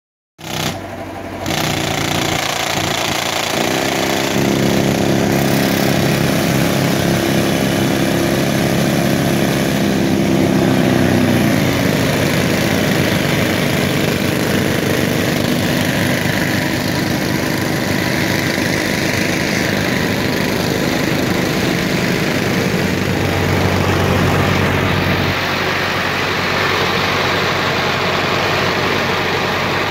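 Indo Farm 3055 tractor's diesel engine running steadily at working revs while it drives an air compressor. Its note drops slightly about eleven seconds in, then holds steady.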